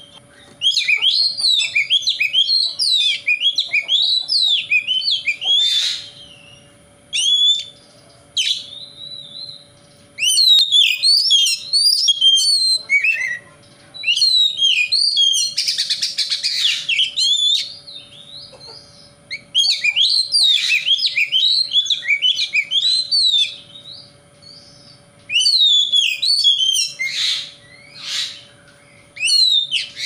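Oriental magpie-robin (kacer) singing: loud phrases of rapid, varied, gliding whistled notes lasting a few seconds each, broken by short pauses, with a few harsher rasping notes mixed in.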